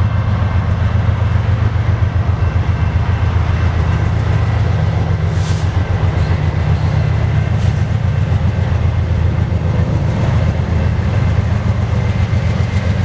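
Diesel-electric freight locomotives, led by a GE ES44DC with its V12 diesel, working a grain train past at close range: a heavy, steady, pulsing engine rumble. A few brief clicks of wheels over the rails sound in the middle.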